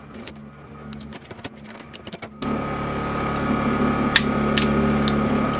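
A knife splitting a crayfish tail shell on a stainless steel bench, with scattered clicks and cracks of the shell. About halfway through a steady hum comes in suddenly and stays, with a couple more sharp clicks over it.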